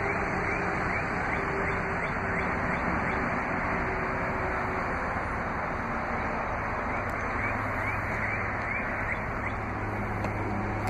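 Steady low hum and hiss of the Ram 1500's 5.7-litre Hemi V8 idling, heard from inside the cab, with the truck in reverse. Faint short chirps recur throughout.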